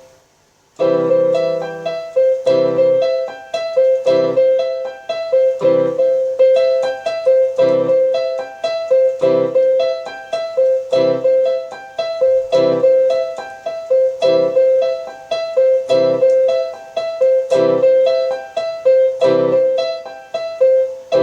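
Electronic home keyboard on a piano voice, played by an inexperienced player working out a song idea. It starts about a second in and keeps to a simple repeating pattern: a low chord about every second and a half under repeated higher notes.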